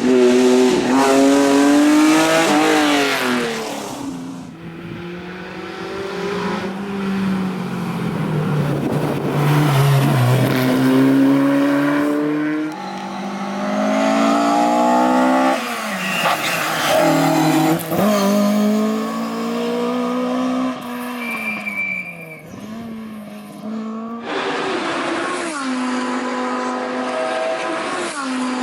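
Classic racing cars driven hard, one after another, their engines revving up and dropping back through the gears as they accelerate and pass.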